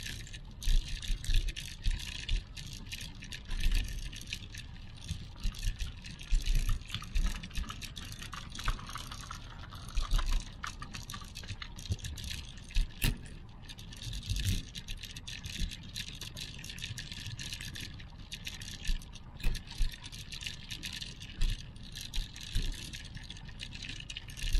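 Handling noise from a handheld action camera carried on a walk: irregular low thumps and rapid sharp clicks, some of them loud, over a steady high hiss.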